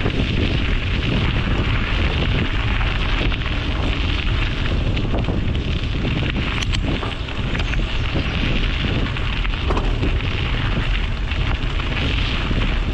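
Wind buffeting a bike-mounted action camera's microphone while riding, with a steady crackly rumble and hiss that is likely tyre and road noise from the rolling bicycle.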